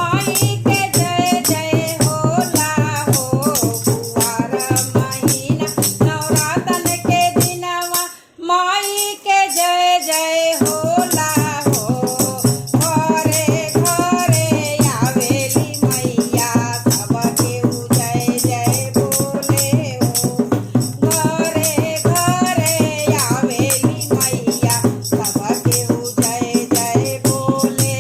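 A woman singing a Bhojpuri devi geet (a Navratri devotional folk song to the Mother Goddess) over a steady, rhythmic accompaniment with a shaker-like rattle. The beat drops out for about two seconds around eight seconds in, leaving the melody alone before it comes back.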